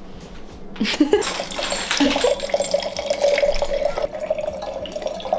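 Liquid poured from a ball-shaped BuzzBallz bottle into a glass, a steady pouring stream that starts about a second in, with a ringing tone running through it.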